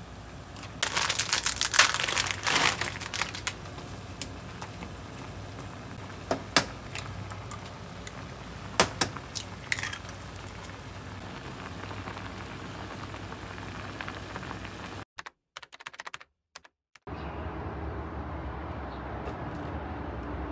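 Crinkling and clicking from handling instant ramen packets and noodles while cooking, over a steady low hiss. It starts with a dense run of crisp clicks, followed by a few separate clicks. Near the end the sound briefly cuts out, then comes back as a steadier low hum.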